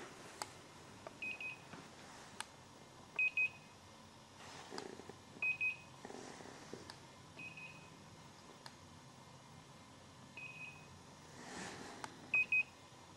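Short high electronic beeps from ghost-hunting detector equipment, sounding in about six brief groups of one to three quick beeps at irregular intervals, three of them clearly louder. Such beeps are the device's alert, which ghost hunters take as a sign of activity. Faint rustling of clothing is heard in between.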